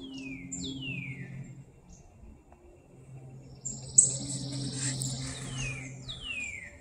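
A songbird singing repeated downslurred whistles, each falling steeply in pitch, in pairs near the start and near the end. About four seconds in, a sudden click followed by a brief hiss is the loudest sound, over a faint steady low hum.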